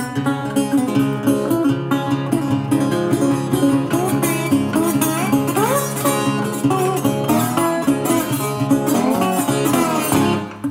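Metal-bodied resonator guitar fingerpicked in a Delta blues style: steady low bass notes under a treble line, with notes sliding up in pitch several times.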